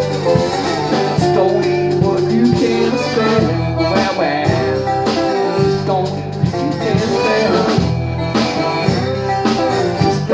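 Piano accordion and acoustic guitar playing live in country/Cajun style: the accordion holds the tune in sustained notes over a steady strummed guitar rhythm.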